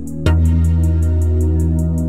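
Background music: a steady electronic track with sustained low bass notes under quick, regular high ticks, and a new note coming in about a quarter second in.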